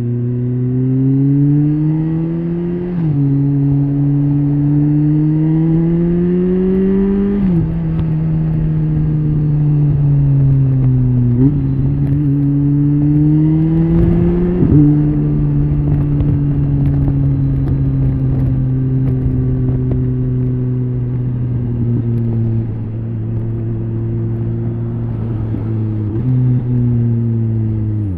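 BMW K1300S motorcycle's inline-four engine under way: its note climbs and drops at two upshifts in the first eight seconds, sinks as the bike slows and rises as it pulls away again, then holds a steady cruising note with a couple of small shifts near the end.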